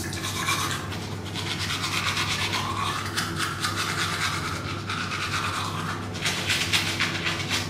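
Manual toothbrush scrubbing teeth fitted with metal braces through foamy toothpaste, in quick, regular back-and-forth strokes.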